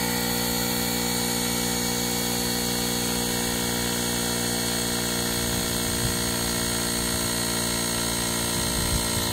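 GOOLOO GT160 battery-powered portable tire inflator's compressor running, pumping up a bicycle tire: a steady mechanical drone that holds one even pitch.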